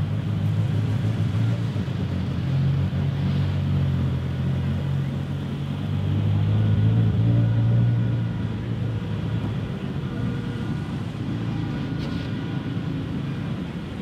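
A car engine running at low revs, swelling louder about six seconds in and easing off again after about eight seconds.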